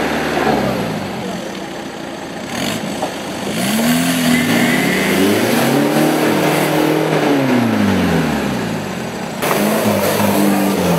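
Off-road 4x4 engines revving hard, the pitch swelling up and falling back over several seconds. About nine seconds in the sound changes abruptly to another engine revving.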